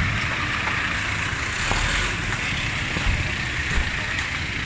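A fire engine's engine running steadily, with a constant hiss over it and a few faint clicks.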